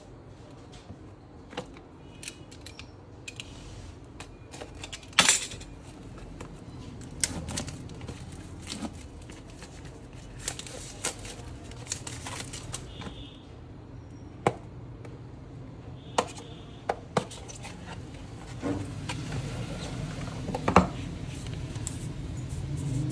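Hands unwrapping and opening a boxed smartphone: plastic shrink-wrap and cardboard box handled, with many scattered sharp clicks and taps, the loudest about five seconds in and again near the end.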